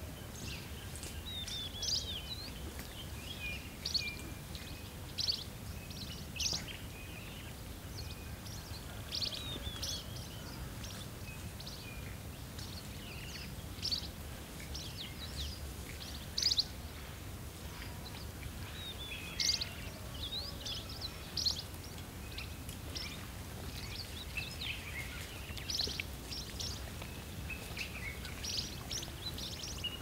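Short, high chirping calls scattered every second or two, some as quick downward sweeps, over a steady low outdoor rumble.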